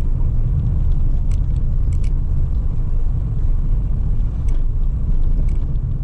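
Car driving on a rough, patchy road, heard from inside the cabin: a steady low rumble of engine and tyres, with a few sharp clicks.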